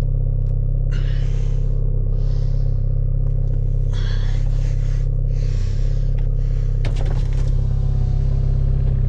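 Hyundai Veloster Turbo's 1.6-litre turbocharged four-cylinder with a catless downpipe, running at a steady cruise with a constant low drone. Short patches of hiss come and go over it, and a few sharp clicks sound about seven seconds in.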